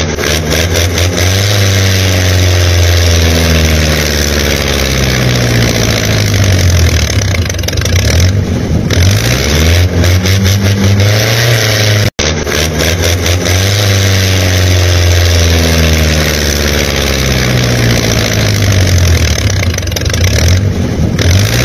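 Tractor engine sound effect, revving up and dropping back again and again. It cuts out briefly about twelve seconds in, and the same sequence of revs starts over.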